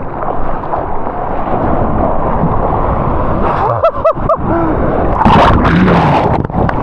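Churning shorebreak whitewater rushing around a mouth-held GoPro. There is a quick burst of bubbling gurgles about four seconds in, and a louder splash of breaking water around five seconds in.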